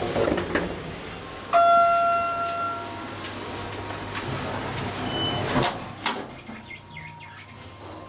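Otis Series 1 elevator sounding a single chime that rings and fades over about a second and a half. Near the end the car door slides shut with a knock, leaving a low steady hum inside the closed car.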